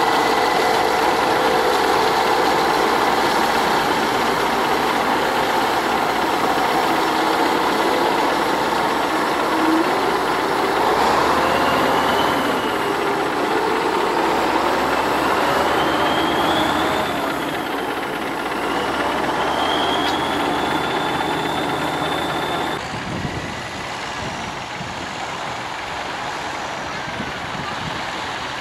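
Kirovets K-700 articulated tractor's diesel engine running while it drives through loose sand, with a rising whine three times as it revs up around the middle. About three-quarters of the way through, the sound drops suddenly and becomes quieter and more distant.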